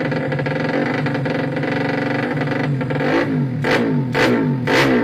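Bored-up Yamaha Jupiter Z single-cylinder four-stroke motorcycle engine running steadily, then from about three seconds in revved in quick throttle blips, about two a second.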